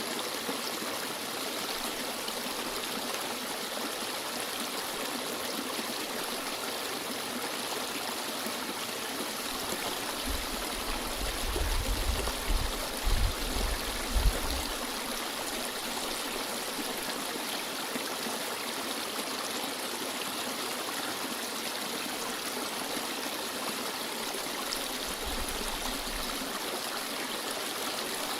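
A stream flowing: a steady rush of running water. A few low rumbles come about halfway through and again faintly near the end.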